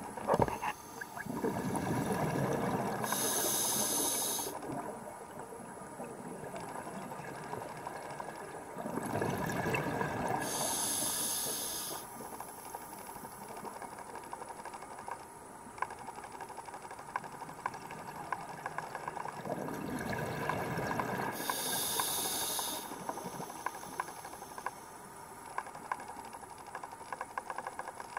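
Scuba diver's regulator breathing heard underwater: three breaths about nine seconds apart, each a low bubbling rush of exhaled air followed by a high hiss of inhaled air. Small clicks and crackles run between the breaths.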